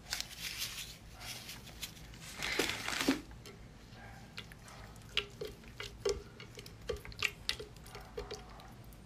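Wet squishing and small sticky clicks as a hand squeezes and turns slippery raw sea anemones in a bowl of chili oil and sauce. There is a louder squelch about two and a half seconds in, then a run of short wet smacks.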